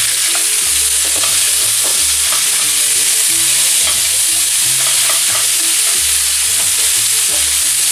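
Diced raw chicken breast sizzling in hot olive oil in a frying pan, stirred with a wooden spatula: a steady high hiss of frying.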